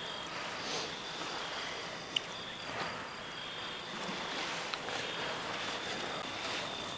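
Steady high-pitched chirring of summer insects, pulsing evenly, over a low outdoor hiss, with a single short tick about two seconds in.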